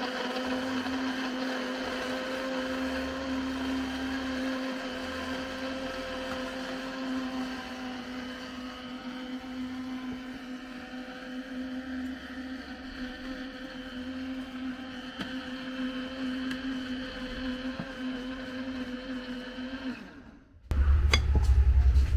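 Philips countertop blender running steadily, puréeing ripe plantain, with a steady motor hum. The hum cuts off about twenty seconds in, and a louder low rumble with a few clicks follows.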